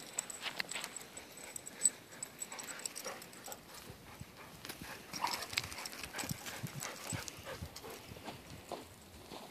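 Irregular crunching steps on loose gravel, paws and feet scuffing the stony ground.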